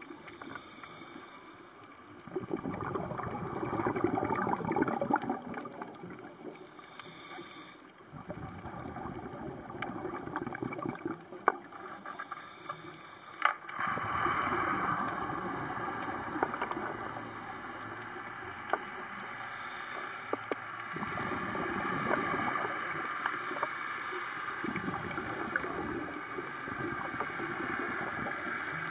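Underwater sound recorded near a scuba diver: rushing, gurgling bursts of exhaled bubbles that swell and ease every few seconds, with scattered sharp clicks.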